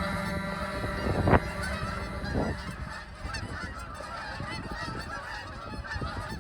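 A flock of geese honking in a dense, many-voiced chatter, coming in as a held musical chord fades out. There is a sharp, loud single sound about a second in.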